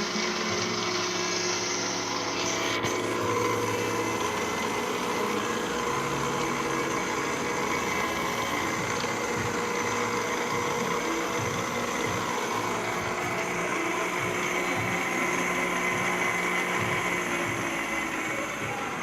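Arboga geared column drill press running steadily under its three-phase motor, a constant hum with a whine from the gearing.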